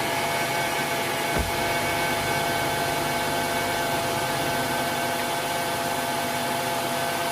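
2003 Honda Pilot's 3.5-litre V6 idling steadily just after its first start on fresh oil, a constant hum with a steady whine over it. A single short knock about a second and a half in.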